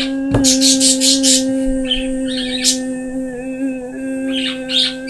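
A person's voice holding one long, steady note, with several short hissy noises over it.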